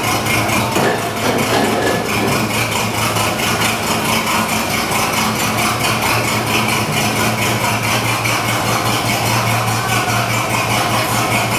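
Engine of a small rail locomotive running steadily with an even pulse as it creeps along the track.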